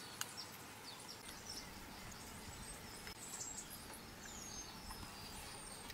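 Faint outdoor ambience with small birds chirping, giving short high chirps and a few falling whistles, and a couple of light clicks.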